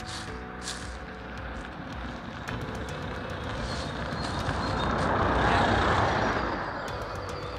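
A road vehicle passing by, its sound growing over a few seconds, peaking just past the middle, then fading away.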